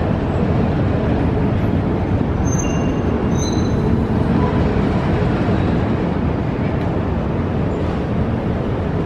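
Moving escalator running with a steady low rumble, with a few faint brief high squeaks about a third of the way in.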